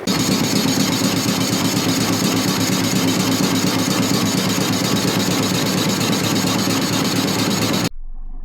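A machine running steadily with a low hum and a hiss above it. It starts suddenly and cuts off suddenly near the end.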